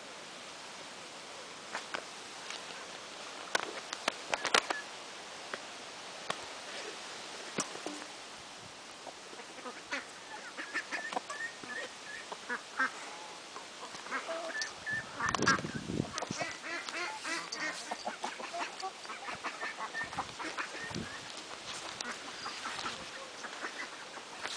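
Chickens clucking in quick runs of short, repeated notes through the second half. A few sharp clicks come in the first few seconds, and there is one louder dull bump about midway.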